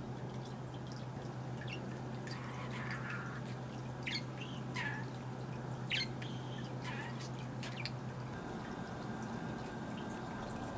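Budgerigar chirping in short, scattered calls, some sliding down in pitch, the sharpest about six seconds in, over a steady low hum that changes about eight seconds in.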